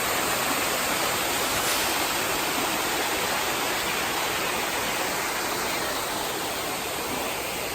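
Waterfall: a steady, loud rush of falling water, an even hiss without a break.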